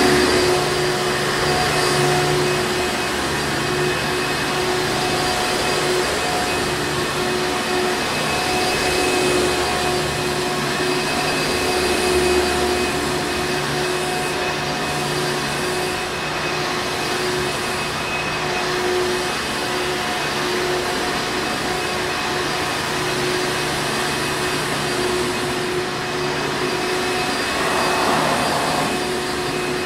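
Hoover Encore Supreme upright vacuum cleaner running steadily: a continuous motor drone with a constant tone.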